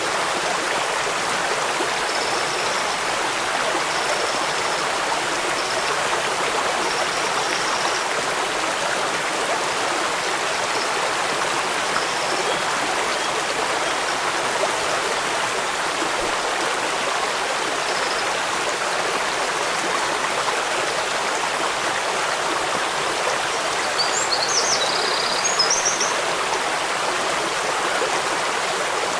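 Steady, even rush of running water from a stream and waterfall. A few brief high chirps come faintly in the first seconds and a little louder about three-quarters of the way in.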